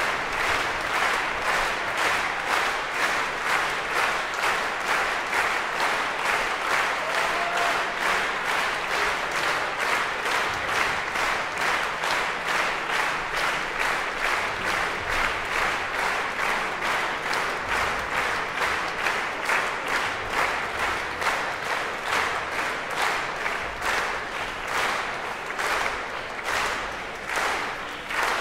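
Concert audience applauding a symphony orchestra, the clapping falling together into a steady rhythmic beat.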